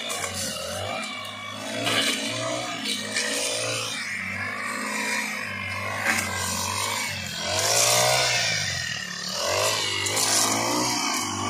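Gasoline brush cutter engine running and revving up and down again and again as it cuts through tall grass.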